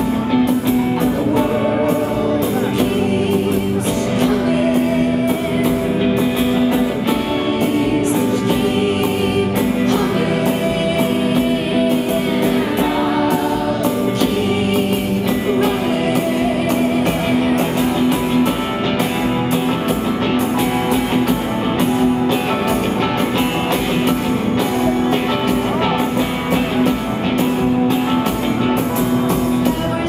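Live band music with a woman singing over guitar and sustained keyboard chords, recorded from the audience.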